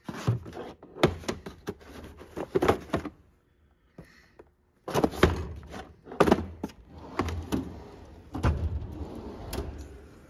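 Plastic tool cases knocking as they are shifted in a Snap-on Epiq toolbox drawer. After a short pause, the drawer slides shut and the next one slides open, with a run of knocks and rattles.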